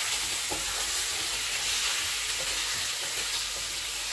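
Mutton pieces with garlic paste sizzling in hot oil on a high flame in a metal karahi while being stirred with a wooden spatula, with an occasional light knock of the spatula against the pan. This is the bhuna stage, with the meat's own juices frying off.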